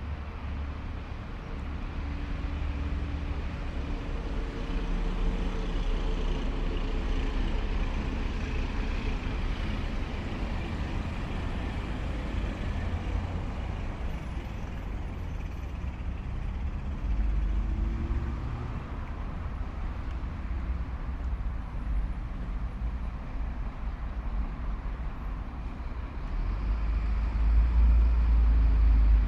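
Road traffic passing on a city avenue: vehicle engines and tyre noise with a steady deep rumble. One vehicle's engine rises in pitch as it accelerates about halfway through, and the rumble grows louder near the end as a vehicle passes close.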